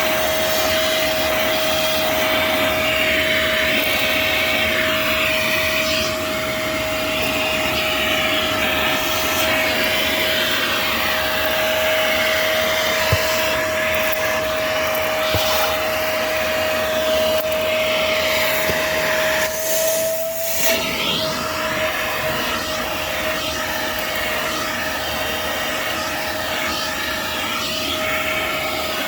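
Vacuum cleaner running inside a car, a steady rush of air with a high motor whine. The rushing sound shifts as the nozzle works over the interior surfaces. About two-thirds through, the rush briefly drops and the whine rises a little before settling back.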